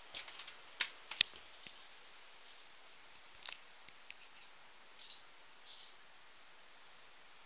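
Handling noise on a hand-held camera: faint, scattered clicks and short scratchy rustles, the sharpest click about a second in, in the small echo of a rock cave.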